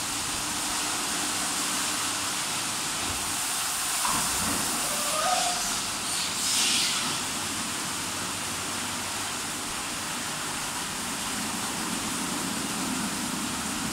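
WashTec California Rohé C45 E2 rollover car wash running, its rotating brushes scrubbing a car with a steady swishing hiss over a low machine hum. There are two brief louder swishes, about five and six and a half seconds in.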